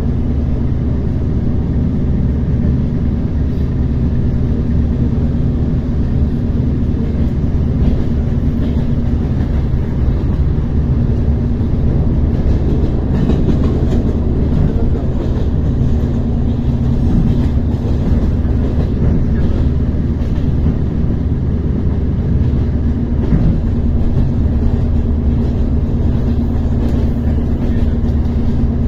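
ER9T electric multiple unit running between stations, heard from inside the carriage: a steady rumble of wheels on rail with a constant electrical hum and faint rail clicks.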